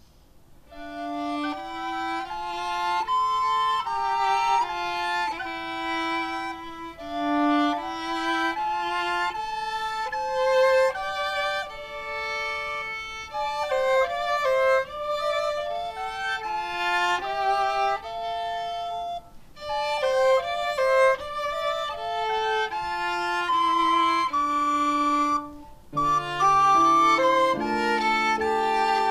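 Violin and recorders playing a melodic classical piece together, one clear note after another. Near the end the piece breaks off into different music with low held notes.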